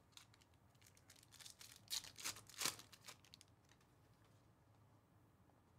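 Quiet handling of a stack of chromium trading cards: a quick run of soft clicks and rustles as the cards slide and tap against each other, loudest about two seconds in and ending by about three and a half seconds.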